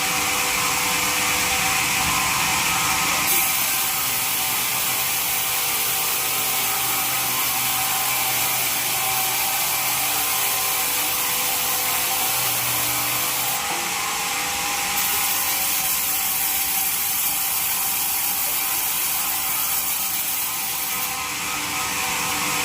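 Sawmill bandsaw machinery running steadily, with a continuous mechanical clatter and a high hiss that changes in strength several times.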